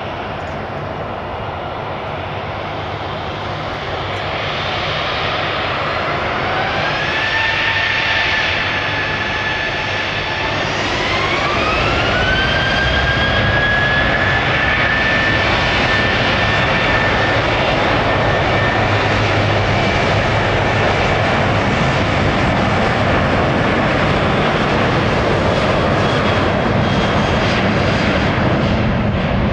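Boeing 737-800's CFM56-7B turbofan engines spooling up for takeoff. The whine rises, holds briefly, then rises again to full thrust and runs steadily and loudly under a broad jet roar.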